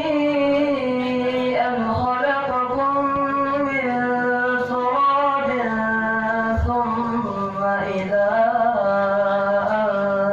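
A single voice chanting the Qur'an in melodic tilawah style, drawing out long held notes with ornamented turns between them, without pause.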